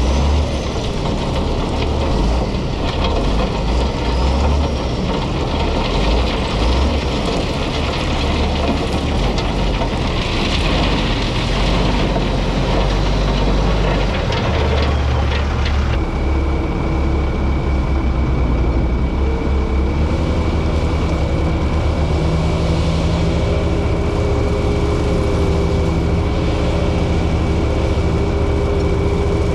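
Heavy diesel construction equipment running steadily with a deep rumble. About halfway through, a steady high-pitched whine sets in and a steady engine note settles alongside it.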